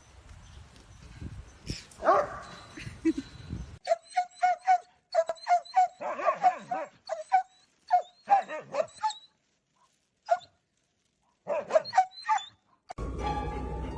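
A dog barking in a run of short barks, about two a second, with a pause of a second or two before a last few barks.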